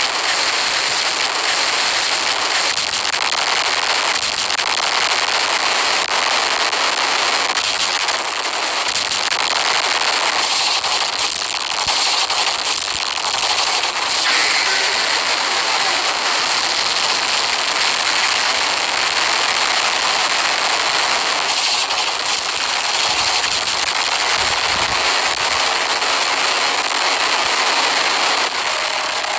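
Loud, continuous crackling noise with a hiss and no clear tone, holding steady throughout.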